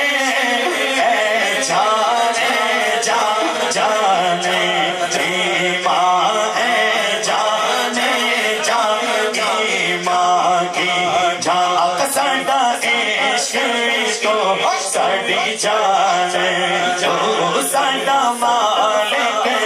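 Men singing a naat, an Urdu devotional poem in praise of the Prophet, into microphones, unbroken throughout, with the lead voice carrying long, winding melodic lines.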